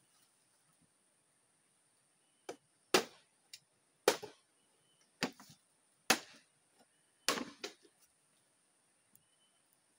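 Sharp woody knocks on a bamboo pole: five loud strikes roughly a second apart, with a few lighter knocks between them.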